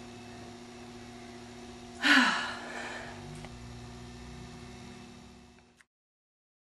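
Steady electrical hum of room tone. About two seconds in, a woman gives one short breathy exhale or sigh that falls in pitch and fades. The sound cuts off abruptly near the end.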